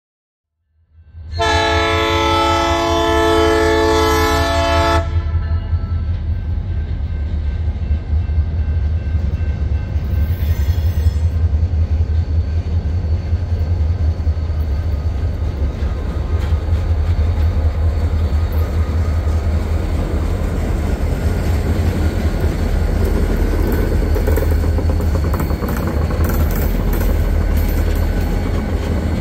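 Air horn of an EMD GP40-2 diesel locomotive sounding one long blast of about three and a half seconds, with a brief, fainter blast about ten seconds in. Under it, the deep steady rumble of the three locomotives' diesel engines as they roll past, growing louder toward the end.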